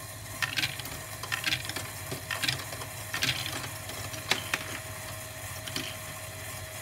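A motor-driven Lego Technic ball flinger module running, with a steady whirr of motor and gears, and small plastic balls clacking against the Lego parts about once a second.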